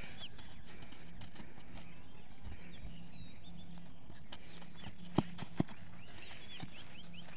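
Open-field ambience with many short high bird chirps and two sharp knocks about five seconds in, half a second apart.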